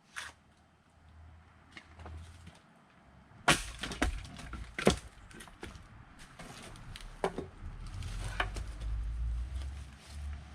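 Firewood being split by hand: sharp axe strikes on logs with the wood cracking apart, two loud blows about three and a half and five seconds in, followed by a few lighter knocks.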